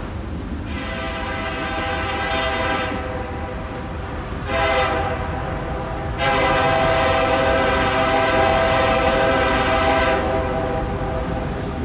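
New York, Susquehanna and Western diesel locomotive's air horn sounding three blasts: a long one about a second in, a short one midway, then a longer one of about four seconds. A steady low locomotive rumble runs beneath.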